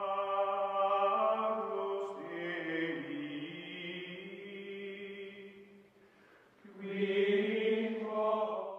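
Outro music of chant-like choral voices holding long, sustained notes together. It fades nearly away about six seconds in, then swells back a second later.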